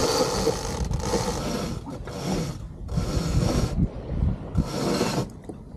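A line on a sailboat hauled by hand in five long pulls, about one a second, the rope rasping through its block with each pull.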